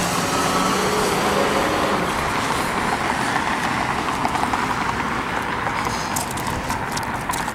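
Street traffic noise with a large vehicle's engine hum that dies away about two seconds in, leaving steady road noise; a few light clicks near the end.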